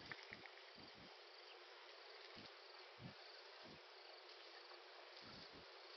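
Near silence: a faint hiss with faint, evenly repeated high-pitched insect chirping.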